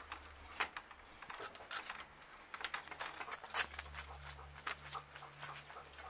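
Irregular light taps and scuffs of footsteps on dirt and gravel, from a person in plastic slip-on sandals and a dog walking away, over a faint steady low hum.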